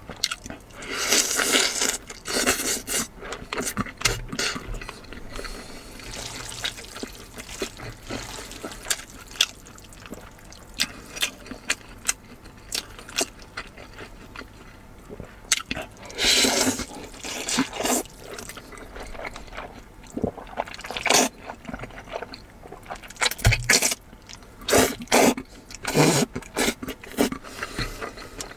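Close-miked eating sounds: a steady run of small wet chewing clicks, broken several times by louder slurping rushes, the longest about a second in and a cluster near the end.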